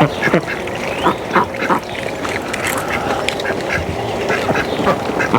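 Domestic ducks quacking: a string of short calls, several of them falling in pitch.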